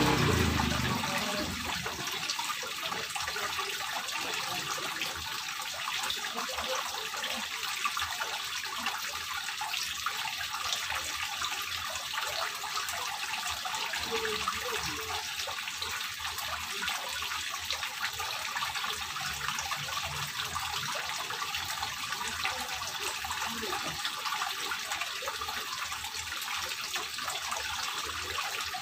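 Water from a terrace wall fountain running down a grooved stone panel and splashing into a small pond basin: a steady, even trickling rush. A low rumble fades out in the first second or two.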